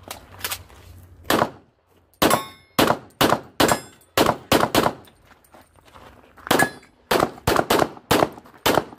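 Handgun firing about fifteen shots in fast strings, a rapid run of seven and a second run of six, separated by a pause of over a second. Some shots are followed by a metallic ring from steel targets being hit.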